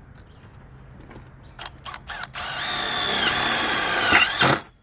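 Power drill driving a screw: a few short trigger blips, then a steady whine for about two seconds that dips in pitch as it loads, stopping suddenly near the end.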